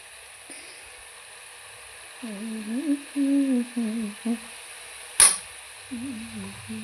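A woman humming a tune in short, held phrases, with a single sharp click about five seconds in.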